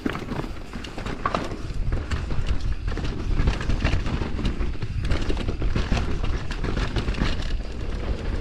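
Mountain bike riding fast down a dirt trail: wind buffeting the microphone and tyres rumbling over dirt and roots, with the bike rattling in many quick clicks and knocks. A brief squeak comes about a second in.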